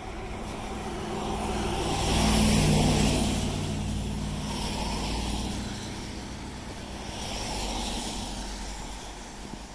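Road traffic passing close by: a pickup truck towing a utility trailer goes by with engine hum and tyre noise, loudest about two to three seconds in, then a car passes near the end.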